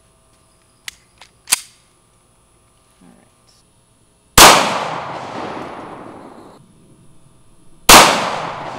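Two shots from an FN 509 Tactical 9 mm pistol, about three and a half seconds apart, each followed by a long echo that dies away over a couple of seconds. A few faint clicks come about a second in.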